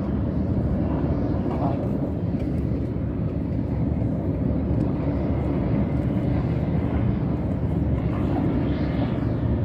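Wind buffeting the microphone: a steady, low rumbling noise.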